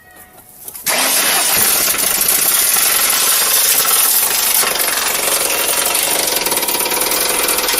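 A worn-out Ford car engine bursts into running about a second in with a loud, harsh, rapid clatter that sounds like an old tractor. The owner takes it for dead.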